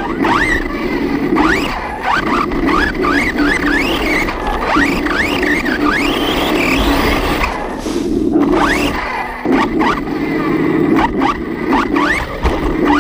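Arrma Kraton 6S RC monster truck's brushless motor and drivetrain running under hard driving, the whine rising sharply in pitch over and over as the throttle is punched, over a steady lower rumble of tyres and gears with a few brief drops.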